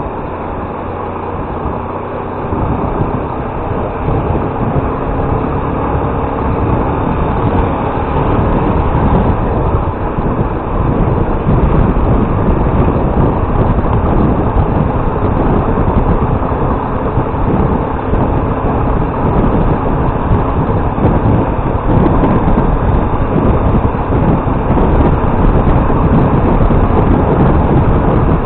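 Motorcycle riding along, its engine running under a rush of wind noise that grows steadily louder.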